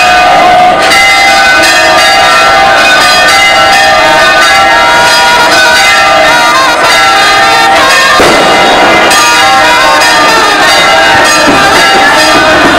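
Church bells pealing loudly and without a break, many strokes overlapping into a dense ringing.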